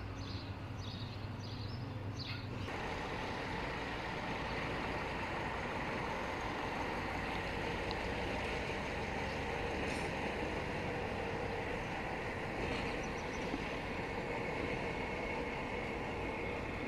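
Romanian 060-DA diesel-electric locomotive running steadily as it hauls a passenger train in, an even engine drone with faint tones in it and a thin high tone coming in near the end. Before it, about three seconds of birdsong over a low hum end in a sudden cut.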